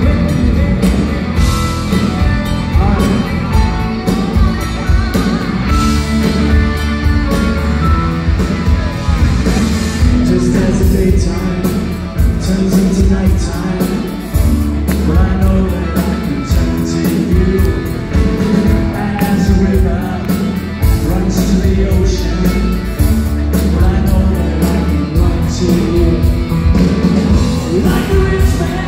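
A live rock band playing a song, with piano, electric guitars, bass and drums, heard from the audience in a theatre.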